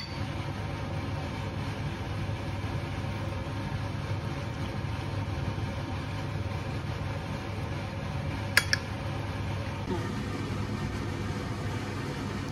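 A metal spoon clinks twice against a ceramic plate about eight and a half seconds in, over a steady low hum.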